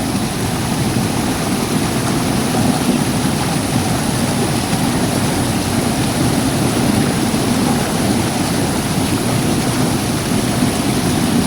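Waterfall with a steady rush of falling water.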